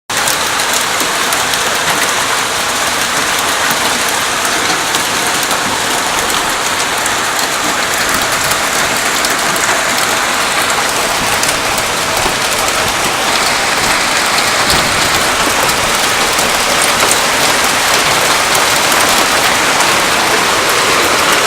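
Heavy rain pouring steadily: a dense, loud hiss of falling rain with fine patter of drops, growing slightly louder near the end.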